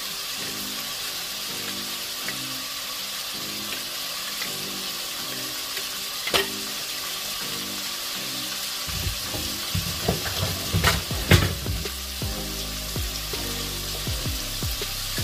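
Chicken thighs searing in hot oil in a pot, sizzling steadily, with a few sharp pops: one about six seconds in and a cluster between ten and twelve seconds.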